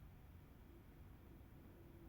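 Very faint steady hum with a low rumble beneath it, from a 2021 Mini Cooper SE's air-conditioning system with a noise fault.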